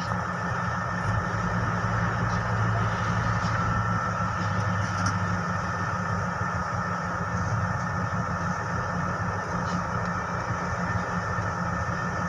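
Vehicle engine running steadily with road noise: a low hum under an even hiss.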